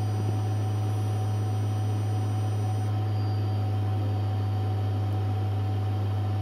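Metcal HCT2-120 hot air rework station running, its pencil blowing air at 3.5 litres per minute onto solder paste to reflow it: a steady low hum under an even hiss of air.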